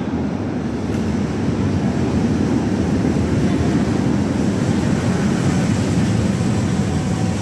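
Stadtbahn light-rail train arriving at an underground station platform: a steady low rumble that grows louder over the first couple of seconds as the train approaches, then holds as it runs in past the platform.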